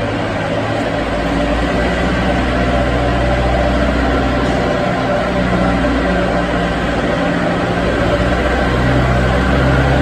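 Cable production line machinery running: a steady low drone with a broad mechanical whir over it.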